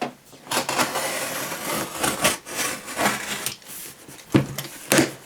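Box cutter slicing through packing tape and cardboard on a shipping box in several long strokes, followed by two sharp knocks near the end.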